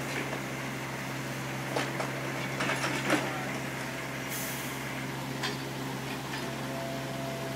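Yanmar mini excavator's diesel engine running steadily while its arm moves, with several metal knocks and clanks in the first half. A short hiss comes about four seconds in, and a faint steady whine starts near the end.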